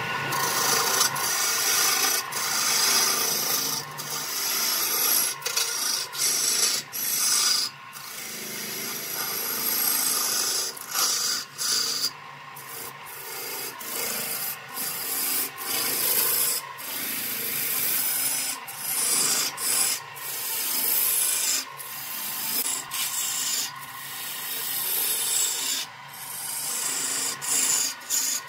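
Turning tool cutting into a log spinning on a wood lathe: a harsh scraping hiss as shavings peel off, broken again and again by short gaps where the tool eases off the wood.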